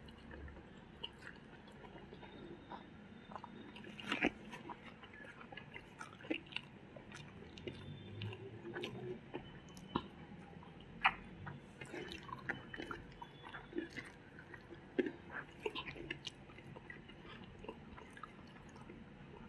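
Close-up chewing of two people eating rice and egg curry by hand, with irregular sharp mouth clicks and smacks.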